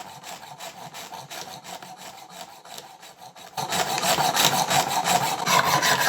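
Junior hacksaw cutting through the metal shank of a ratchet screwdriver in quick, rhythmic back-and-forth strokes, becoming much louder about three and a half seconds in.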